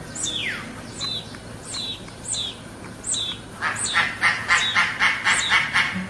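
Mountain hawk-eagle calling: a string of shrill, high notes, each falling in pitch, a little more than one a second. From a little past halfway, a louder, faster run of pulsed notes at about four a second joins in.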